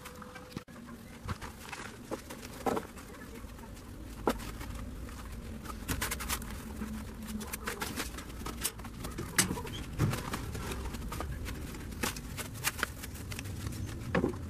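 Scattered clicks, knocks and scrapes of a trowel working wet concrete in a plastic paving-stone mould, over a steady low rumble.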